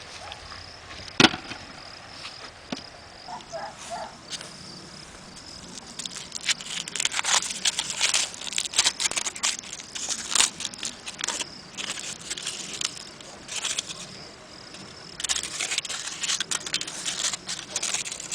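Meat grinder working marshmallows through, with dense irregular crackling and scraping from about six seconds in. A steady high whine runs underneath and drops out briefly near the end, and a single sharp click comes about a second in.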